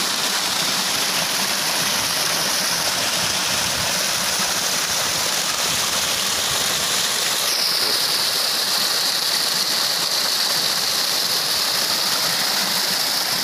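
Water of a small cascade rushing and splashing down over rocks, close up: a loud, steady rush. About seven seconds in, its hiss drops slightly in pitch.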